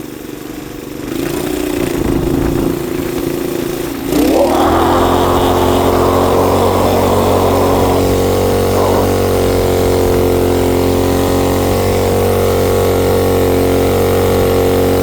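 Motorcycle engine under way. It picks up about a second in, is revved up sharply about four seconds in, then holds a steady high engine speed.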